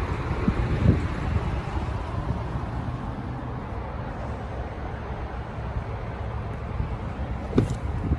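GMC Sierra's 6.2-litre V8 idling steadily: a low, even rumble.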